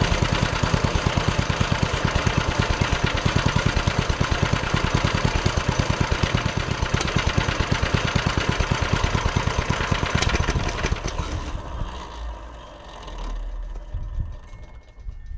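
Hisun 196cc single-cylinder four-stroke engine on a Coleman CT200U mini bike running with an even, rapid exhaust beat, which dies away about eleven seconds in, leaving only a faint low rumble.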